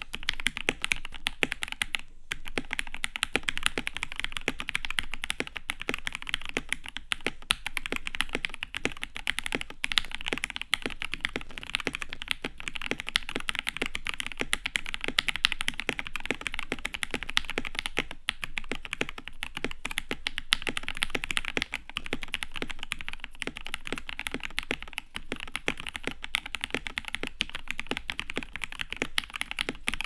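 Continuous typing on a KBD67 Lite R1 mechanical keyboard with a polycarbonate plate, linear Gateron Black Ink V2 switches that are filmed and lubed with Krytox 205g0, and dye-sub keycaps. The key strikes come in a dense, steady stream, with a brief pause about two seconds in.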